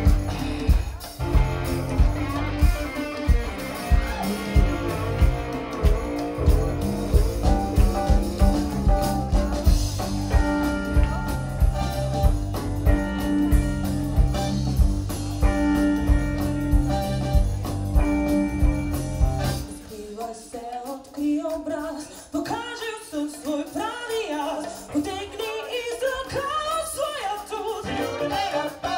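Live pop-rock band playing a steady groove on drums, electric bass, electric guitar and keyboards. About twenty seconds in, the bass and drums drop out and a woman's voice sings over lighter backing.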